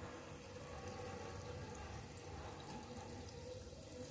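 Jangiri batter sizzling faintly as it is piped in a ring into hot frying oil, with small crackles.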